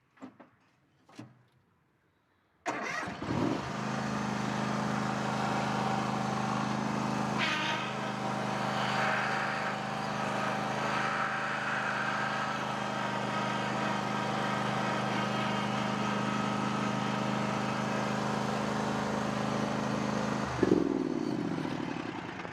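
Two faint clicks, then a riding lawnmower's engine starts about three seconds in and runs steadily. Near the end it is shut off, and its pitch falls as it winds down.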